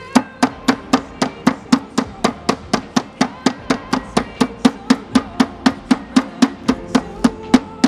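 Metal meat mallet pounding a chicken breast flat under plastic film, in steady, even strikes about four a second.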